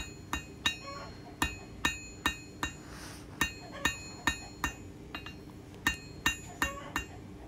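Hand hammer striking red-hot 5160 spring steel on an anvil in a steady rhythm of about two to three blows a second, each blow leaving a short metallic ring from the anvil, with a brief pause about three seconds in. It is the drawing out of a long, square taper for an awl point.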